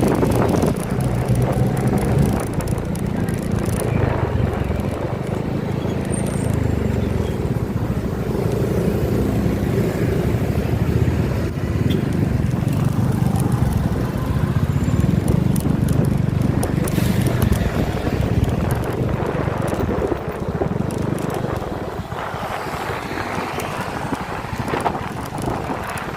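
A moving vehicle's engine, with road and wind noise, running steadily.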